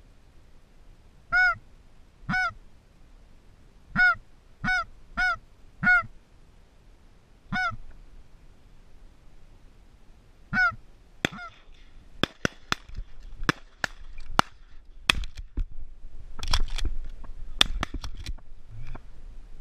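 Eight short, single honking calls, spaced irregularly over the first ten seconds. These are followed by a run of sharp cracks and clicks that ends in shotgun shots.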